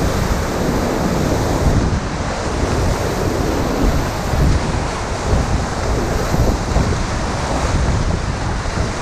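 Loud, steady rush of whitewater rapids churning and splashing right beside a raft, close to the microphone at the waterline.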